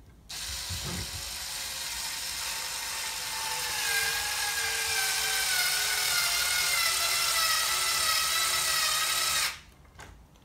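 Cordless electric screwdriver running for about nine seconds, driving a bolt into a 3D-printed print-head mount. Its whine slowly drops in pitch and grows louder about four seconds in as the bolt draws tight, then cuts off.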